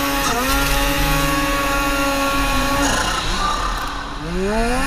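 Snowmobile engine running hard under throttle, held at steady revs for about three seconds. It then eases off and revs up again near the end, its pitch rising.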